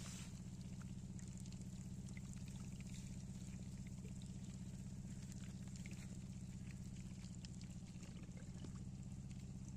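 A steady low hum with a faint, even sound of pouring water and scattered light ticks.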